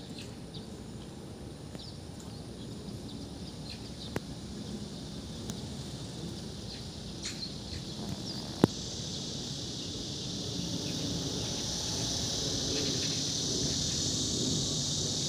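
Outdoor ambience: a steady high-pitched insect drone that swells about halfway through, with scattered short bird chirps and a low background rumble. A single sharp click stands out a little past the middle.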